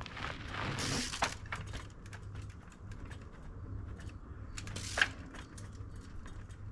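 20-inch trials bike ridden on rock: scattered sharp clicks and knocks of tyres, chain and freewheel against stone, with short hissing bursts around a second in and a sharper one about five seconds in.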